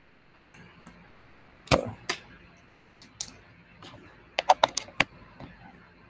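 Typing on a computer keyboard: a few single sharp key clicks, then a quick run of about six clicks a little past the middle.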